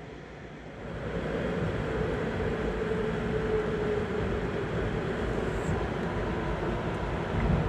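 Moving passenger train heard from inside a car: the steady rumble and hiss of wheels running on the rails at speed. It gets louder about a second in, carries a faint whine for a few seconds in the middle, and there is a low thump near the end.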